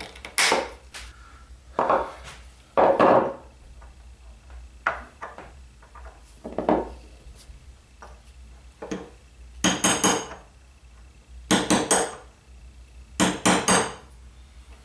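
Pliers gripping and working a bent nail out of an oak board with scattered clicks and scrapes, then a hammer tapping a nail set, in three quick groups of two or three metallic taps in the second half.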